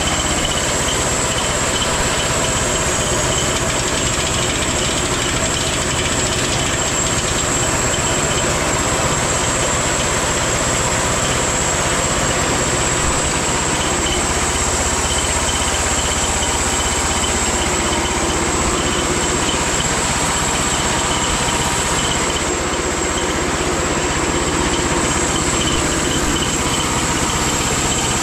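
Homemade band sawmill running steadily, its engine humming at an even pitch.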